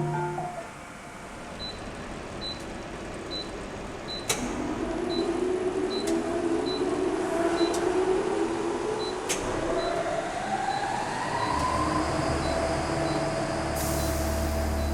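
Soundtrack sound design: a slow rising tone that climbs for about eight seconds, with regular faint ticks, two sharp clicks, and a low steady hum that comes in near the end.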